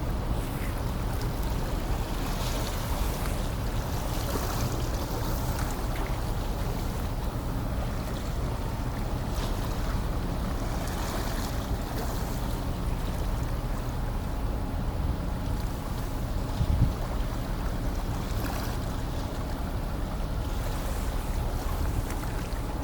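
Steady low rumble of the car ferry Hayabusa under way as it comes into port, with wind buffeting the microphone. A single knock stands out about two-thirds of the way through.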